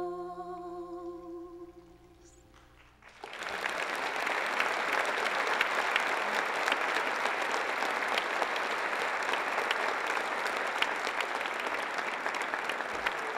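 A woman's held sung note fades away at the end of a song, and after a short hush an audience breaks into applause about three seconds in, clapping steadily to the end.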